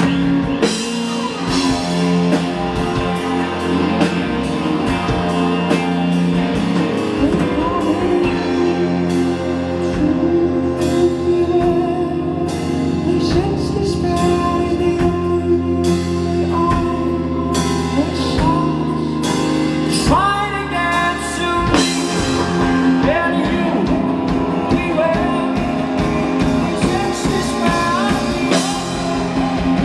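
Live rock band playing, with a singer over electric guitar, bass and drums.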